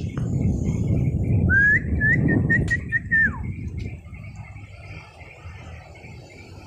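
A person whistling a call to the dogs: one high whistle that rises, warbles for a second or so, then drops away. Under it, a loud low rumble on the microphone during the first four seconds.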